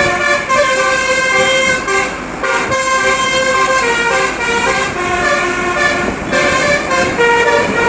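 Bus telolet horn, a multi-tone musical air horn, playing a continuous tune of shifting notes with brief breaks about two and six seconds in.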